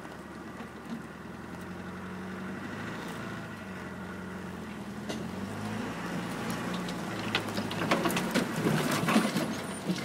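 Land Rover Discovery Mk1 engine pulling at low speed off-road, heard from inside the cab and growing gradually louder. In the last two or three seconds, branches scrape and crackle along the body and windscreen.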